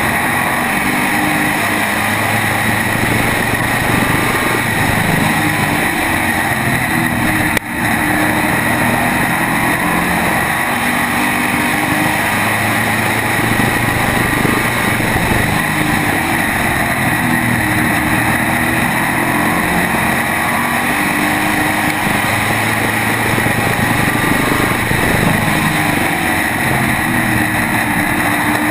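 SK modified race car's V8 engine heard up close on board at racing speed, its pitch rising and falling in a repeating pattern as the driver goes on and off the throttle through the turns. A brief break in the sound about seven and a half seconds in.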